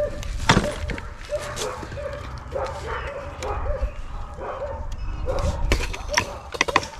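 Excited dog yipping and whining over and over in short high calls, about two a second. A few sharp clicks cut in, the loudest about half a second in.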